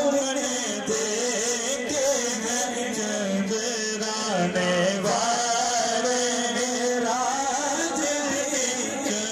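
A man singing a naat in long, wavering, melismatic held notes, with no clear words.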